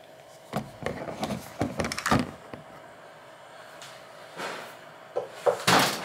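Knocks and clatter of hands handling things at a fridge and its wiring: a quick run of sharp knocks in the first two seconds, a quiet stretch, then more knocks and a louder clatter near the end.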